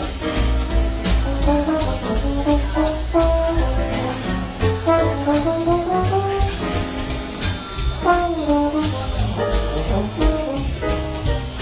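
Electronic keyboard playing a jazzy tune with a brass-like lead voice that slides between notes, over a bass line and a steady backing beat of about four ticks a second.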